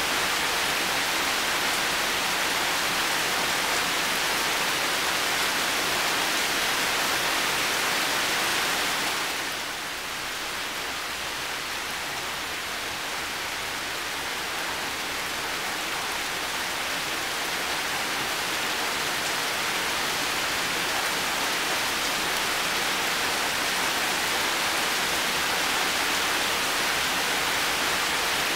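Heavy rain falling steadily, an even hiss with no single drops or other sounds standing out. About ten seconds in it eases a little, then builds back up over the next several seconds.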